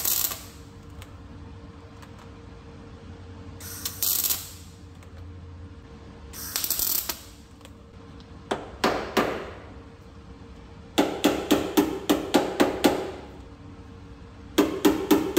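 MIG welder laying short tack welds on a sheet-steel rocker panel: three brief crackling hisses, each under a second. Then a small hammer taps the steel panel in quick runs of strikes, about five a second, working it into shape.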